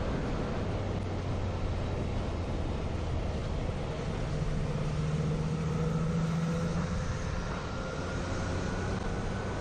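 Motorcycle engine running at a steady riding speed, with wind and road rush over it; the engine note climbs slightly through the second half.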